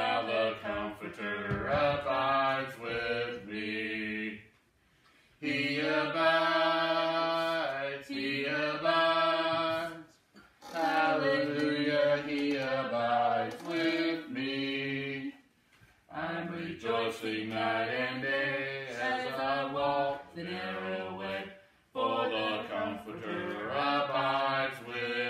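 Unaccompanied singing of a gospel hymn, one voice in sustained phrases of about four to five seconds with short breaks for breath between them.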